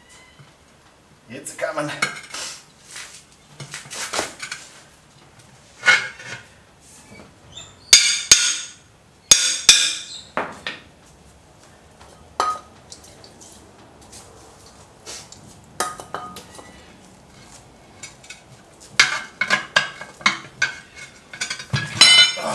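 Steel tyre levers clanking and scraping against a steel wheel rim as the second bead of a tubeless all-terrain tyre is prised over the rim lip by hand. Irregular separate clanks, with a quick run of metallic knocks near the end where a hammer moves the levers around.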